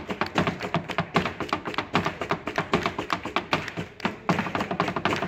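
Flamenco dancer's heeled shoes stamping fast footwork (zapateado) on a small stage box: a quick run of sharp taps, many a second, with a brief break about four seconds in.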